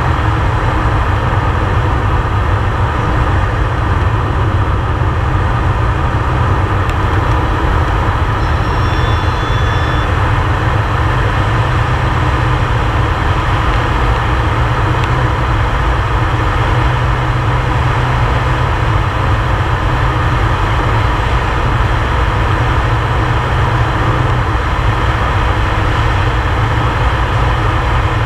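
Air Tractor 502XP's Pratt & Whitney PT6A turboprop engine and propeller running at flight power, heard inside the cockpit as a loud, steady, deep drone mixed with the rush of air.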